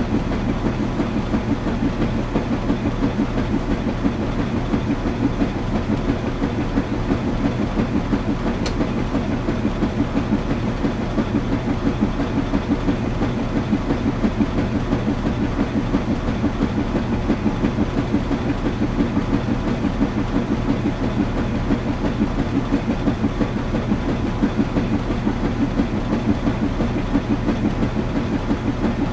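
Washing machine running, its drum turning with a steady rhythmic pulsing over a constant low hum.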